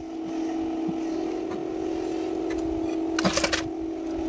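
A steady mechanical hum, like a motor running, with a short clatter of several hard knocks about three seconds in.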